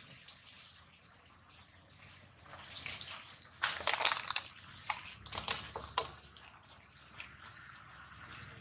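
Dry fallen leaves rustling and crackling as monkeys walk and crawl through the leaf litter, in irregular bursts that are loudest about four seconds in.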